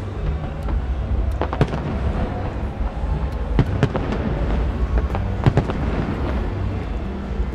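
Aerial firework shells bursting in quick succession: a continuous deep rumble of booms, with sharp cracks scattered through it.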